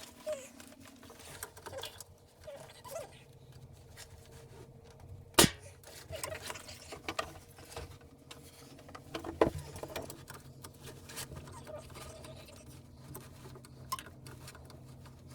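Two sharp knocks about four seconds apart, among small scattered clicks and taps, over a faint steady hum.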